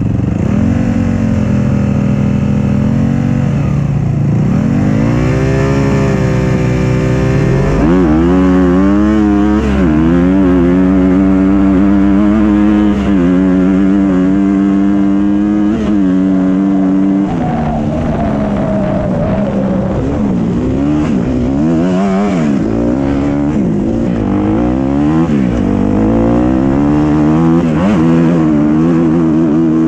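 Dirt bike engine revving hard and shifting up through the gears, its pitch climbing and then dropping back at each shift. Other off-road vehicle engines are mixed in.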